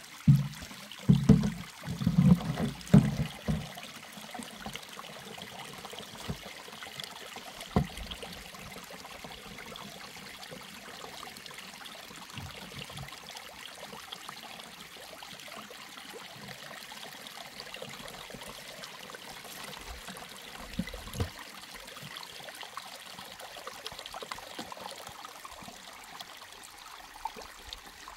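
A steady rush of running water, like a stream, with a few low thumps in the first few seconds.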